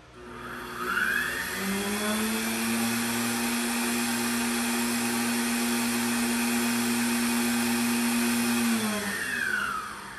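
ProLIGHT 1000 CNC mill's spindle motor switched on, spinning up with a rising whine about a second in, running at a steady pitch over a whirring hiss, then spinning down with a falling whine near the end.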